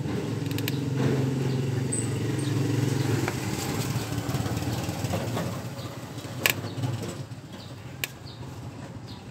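A motorcycle engine running with a steady low hum that fades away over the last few seconds. Two sharp clicks sound near the end.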